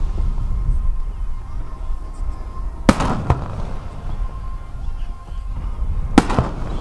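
Aerial fireworks bursting: two sharp booms about three seconds apart, each followed within half a second by a second report, over a continuous low rumble.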